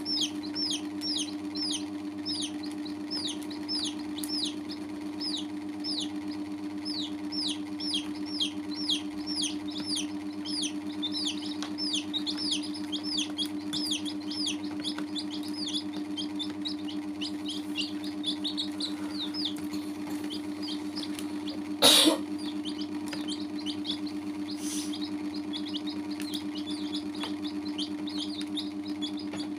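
Baby chicks peeping: a steady run of short, high, falling cheeps, about two or three a second, over a constant low hum. A loud, brief rustling noise cuts in about three quarters of the way through.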